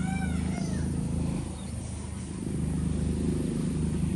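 A steady low drone, like a motor or pump running, throughout. In the first second a short rising-and-falling animal call sounds once, with a fainter echo of it just after.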